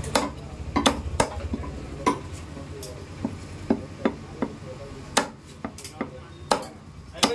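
Butcher's cleaver chopping fresh mutton: sharp, irregular chops, roughly two a second.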